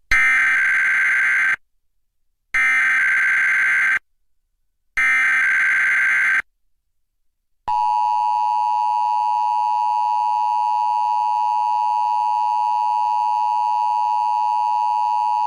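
Emergency Alert System SAME header: three bursts of warbling digital data tones, about a second and a half each with short gaps between. These are followed by the steady two-tone EAS attention signal, which starts about eight seconds in and is held for nearly eight seconds. This is the start of an EAS Required Weekly Test.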